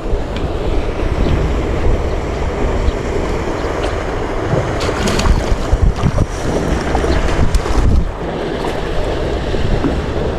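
Wind buffeting the microphone: a loud, uneven low rumble throughout, with a few faint clicks above it.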